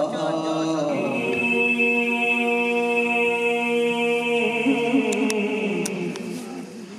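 A man's voice chanting a devotional recitation through a microphone, holding one long steady note from about a second in, then sliding down and fading near the end.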